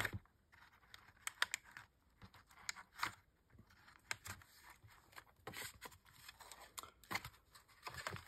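Kraft cardboard cover being pushed onto the discs of a disc binding: scattered soft clicks and taps with light paper rustling.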